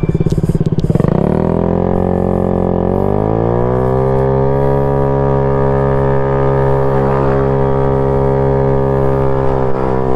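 Modified Honda Ruckus scooter engine under way: its drone rises in pitch over the first few seconds as it speeds up, then holds steady at cruising speed. The owner says it is running a little rich and needs rejetting.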